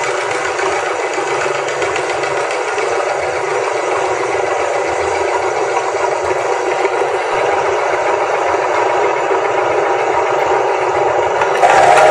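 Electric meat grinder running steadily as peeled hard-boiled eggs are fed onto its spinning auger. It starts abruptly, and about a second before the end it jumps louder and changes tone.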